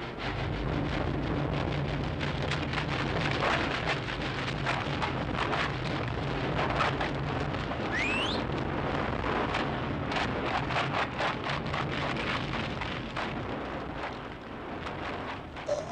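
Cartoon sound effects of frantic digging: a dense, continuous rattle of scrabbling and flung dirt over a low rumble, with a short rising whistle about halfway through.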